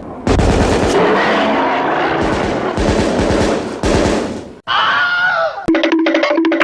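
Rifle gunfire sound effect: a rapid, continuous volley of shots lasting about four seconds. It is followed near the end by a short electronic jingle with a pulsing, repeated tone.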